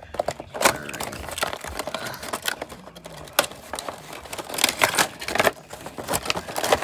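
A cardboard Funko Pop box being opened by hand and its clear plastic insert pulled out: irregular crinkling and rustling with many small clicks.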